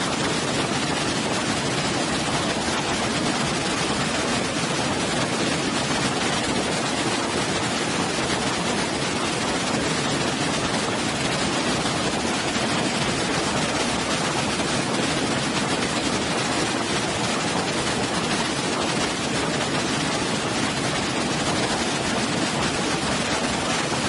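Waterfall and water cascading over rocks, rushing steadily with an even, unchanging noise.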